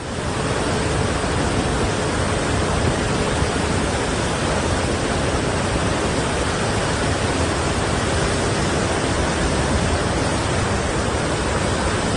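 Floodwater of a swollen river rushing through a dam's spillway gates: a dense, steady rush of churning water that cuts in suddenly at the start and holds steady.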